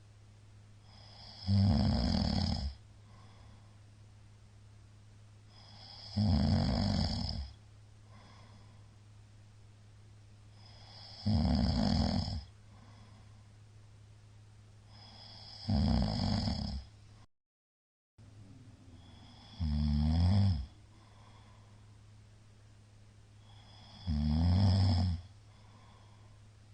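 A middle-aged man snoring loudly in deep sleep, which the uploader puts down to heavy drinking: six snores about four to five seconds apart, each lasting about a second.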